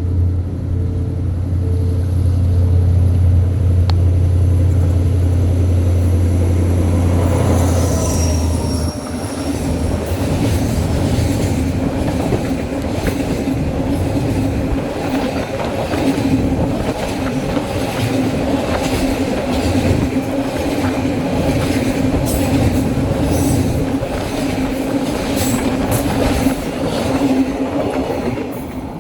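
Diesel train running past on the rails: a loud, steady engine drone for the first eight seconds, a brief high wheel squeal, then the rumble of the carriages rolling by with clicks of wheels over rail joints, more frequent near the end.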